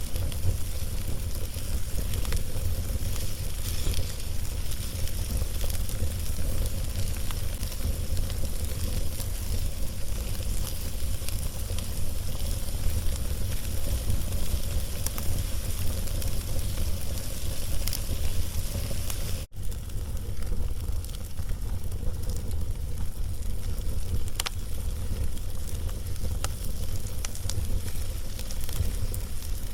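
Log fire burning: a steady hissing sizzle with scattered sharp crackles and pops over a constant low rumble. The sound cuts out completely for a split second about two-thirds of the way through.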